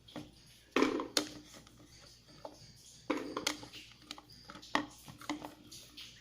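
Peeled garlic cloves being dropped into a blender jar: a string of light, irregularly spaced clicks and knocks against the jar, some with a short ring.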